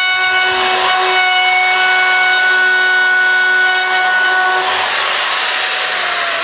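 Compact wood router running at full speed, a steady high motor whine with the rushing noise of the bit cutting the edge of a pine frame. About five seconds in the whine stops and its pitch falls away as the motor winds down.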